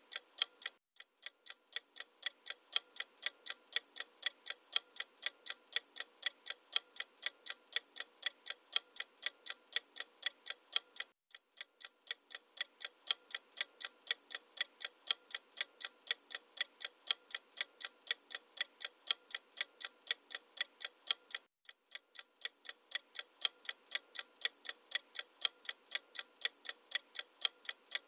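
Clock-ticking sound effect, a steady rapid ticking used as a quiz countdown. It breaks off for a moment three times, about every ten seconds.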